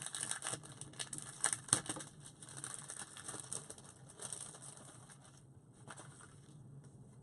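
Packaging of a set of eyeliner stencils crinkling and crackling as it is handled and opened. The sound is densest in the first few seconds, with a few sharper crackles, then dies down.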